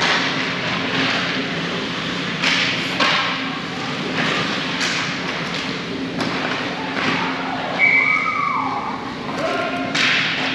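Sounds of a game in a large echoing hall: a steady din broken by sharp knocks and thuds every second or two. A short steady high tone sounds about eight seconds in, and a voice calls out near the end.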